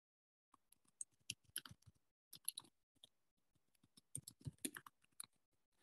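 Typing on a computer keyboard, heard through a video-call microphone: irregular runs of quick key clicks starting about half a second in.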